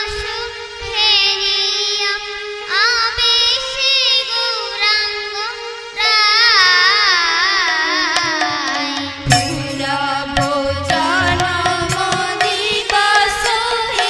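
Bengali kirtan music: a high, wavering melody with heavy vibrato over a steady drone. About nine seconds in, drum strokes and sharp cymbal-like strikes come in with a beat.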